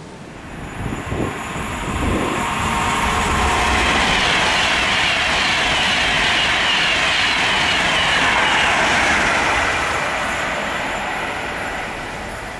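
Passenger train passing at speed: a rush of wheels on rail and air that builds over the first couple of seconds, holds steady for several seconds, and eases off near the end.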